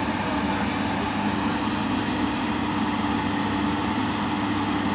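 Heavy diesel machinery running steadily: the engine of a working crawler excavator, a constant drone that holds one pitch without revving.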